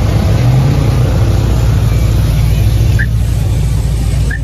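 Cadillac CTS-V sedan's supercharged V8 running at low speed as the car rolls past close by: a loud, steady, deep exhaust rumble.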